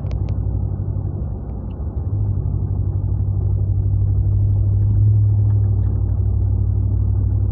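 Low, steady rumble of a car's engine and road noise heard inside the cabin, growing a little louder about two seconds in.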